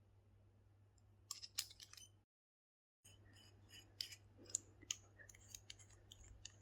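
Faint small clicks and taps from fiddling with a brass mechanical pencil and its lead: a short cluster about a second and a half in, a moment of dead silence, then scattered single clicks.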